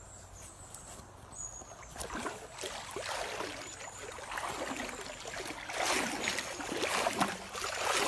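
Legs wading through a shallow river, water swishing and sloshing around them in irregular strokes, starting about two seconds in and growing louder.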